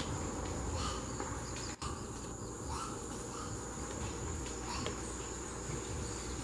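Steady, high-pitched drone of forest insects, with a few short faint crackles from the leaf litter.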